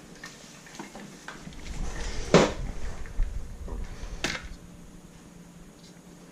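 Handling clatter: a series of light clicks and knocks, with two louder sharp knocks about two and a half and four and a quarter seconds in.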